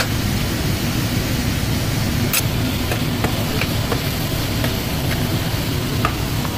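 Wooden spatula stirring chopped beetroot in a nonstick kadhai, with a few light taps and scrapes against the pan, over a steady rushing noise.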